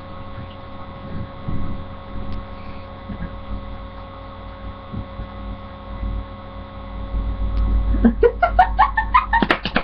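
Steady electrical hum picked up by the webcam microphone, with low rumbling. About eight seconds in, a girl's voice breaks in, high and wavering, without clear words.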